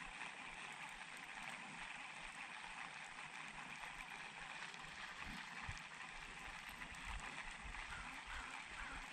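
Faint steady outdoor hiss, with short low rumbles of wind buffeting the microphone about five seconds in and again near the end.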